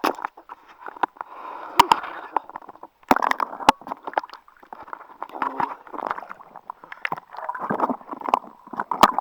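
Sea water sloshing and gurgling close to the microphone in irregular surges, with several sharp knocks and splashes as a swimmer moves through the water.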